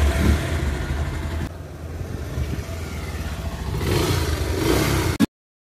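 Bajaj Pulsar motorcycle engine, freshly rebuilt after a seizure, being revved: it revs, falls back about a second and a half in, revs up again near the end, then cuts off suddenly.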